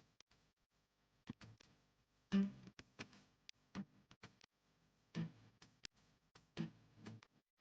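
Faint background music of soft plucked notes, one about every 1.4 seconds, with a few light clicks between them.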